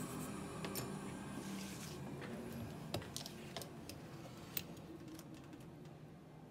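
Sparse light clicks and taps, about half a dozen spread across a few seconds. A steady machine hum with a high whine fades away in the first second and a half.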